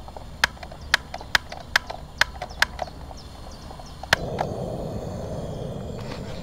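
Portable gas grill's igniter clicking six times, about twice a second, then once more about four seconds in as the gas catches. A steady rushing sound of the lit burner follows.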